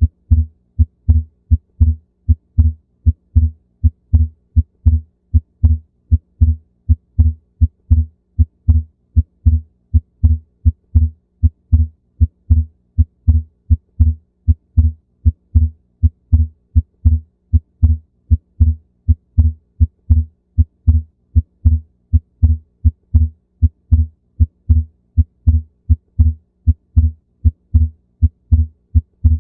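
Recorded human heart sounds: a steady rhythm of low lub-dub thumps. The second heart sound (S2) is split into two close parts ('lub the lub'), the normal physiological splitting of S2. A faint steady hum runs underneath.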